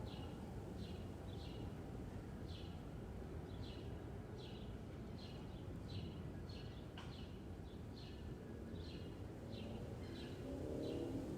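A bird repeating one short, falling chirp over and over, about one to two a second, over a steady low background hum of suburban outdoor noise. Near the end a low droning tone rises briefly under it.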